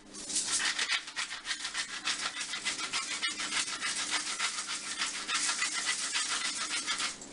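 Pepper grinder being twisted, a continuous gritty crunching rattle of rapid ticks as peppercorns are ground.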